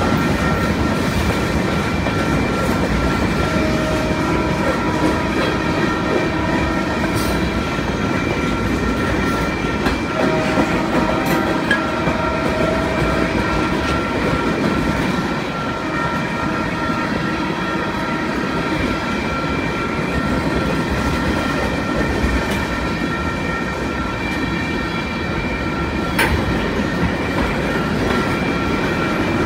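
Freight train of tank cars and covered hoppers rolling steadily past: continuous wheel-on-rail noise with clacking over the rail joints and steady high-pitched ringing tones from the wheels.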